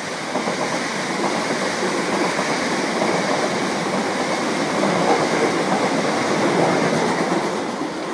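Passenger train passing close by at speed: a steady rush of wheel and rail noise that eases slightly near the end as the last carriage goes by.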